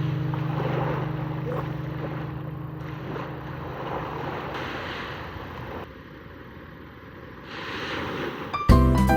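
Surf washing onto a sandy beach, swelling and easing in waves, with wind on the microphone. Guitar music fades out in the first seconds, and new music cuts in near the end.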